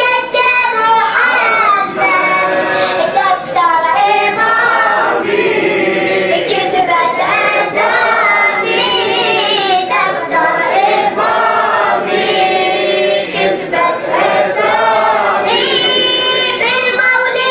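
Voices singing an Arabic mawlid poem together in chorus, melodic sung phrases following one another without a break.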